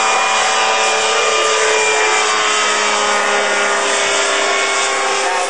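Sunny ultralight aircraft's engine and propeller droning as it flies low overhead, a steady buzzing note that sinks slightly in pitch as it passes.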